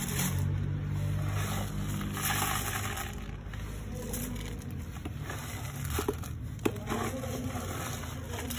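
Cat litter being scooped: a plastic slotted scoop scraping and sifting through clumping litter in a plastic litter box, with granules and clumps spilling into a plastic bin bag. A single sharp tap stands out about two thirds of the way through.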